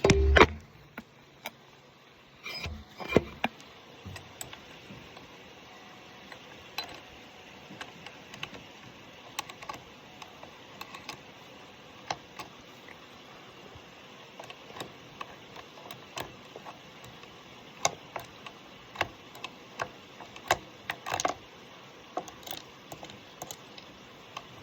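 Scattered metal clicks and clinks of hand tools and small parts being worked on a lawn mower, irregular and short, with a louder cluster of knocks about three seconds in and again near the end.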